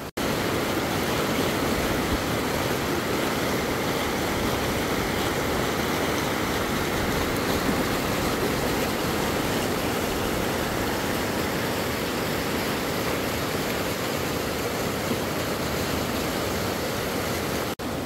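Creek rapids rushing over boulders: a steady rush of white water, broken only by a brief dropout near the end.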